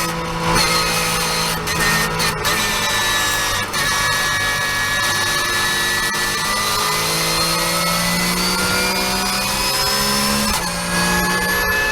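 Porsche 991.1 Cup car's 3.8-litre flat-six engine under hard acceleration on track. The revs climb steadily through one long pull, with quick gearshift breaks in the first few seconds and another shift near the end.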